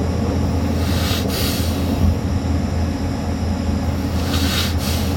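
A person imitating snoring with two heavy, hissing breaths, one about a second in and one near the end: the strong breathing that opens a snoring pattern. Under it a moving vehicle's steady low drone.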